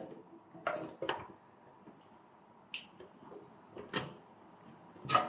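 Plastic plug-in circuit breakers clicking and knocking against a metal breaker panel as one is pressed onto the bus bar: about five sharp clicks, spread unevenly.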